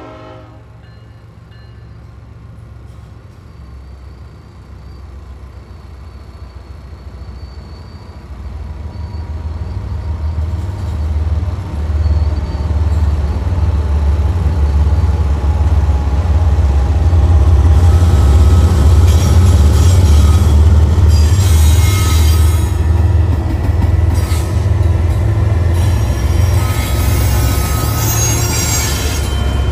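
Freight train approaching and passing: the diesel locomotives' low rumble grows steadily louder from about a third of the way in. In the second half, high squealing and rattling from the rolling cars' wheels join it.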